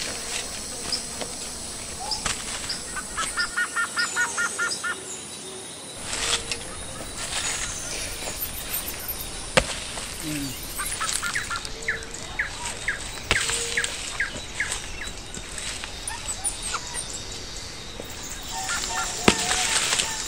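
Birds chirping, with a quick run of chirps about three seconds in and more scattered chirps later. A few sharp chopping knocks from a blade striking wood, the loudest about ten seconds in and near the end.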